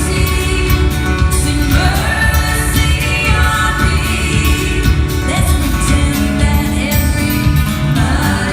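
Live band playing a song, with sung vocals rising over the instruments several times.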